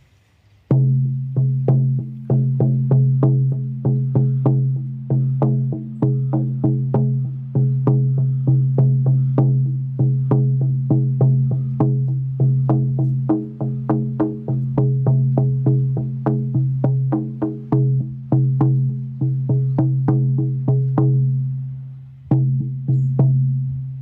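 14-inch buffalo-skin shamanic frame drum on a willow frame, struck with a firm beater in a steady beat of about four strokes a second, each stroke a deep note. The head is tight, which the maker says may pitch it slightly higher than a more relaxed skin would. The beating breaks off briefly near the end, picks up for a few more strokes, then rings out.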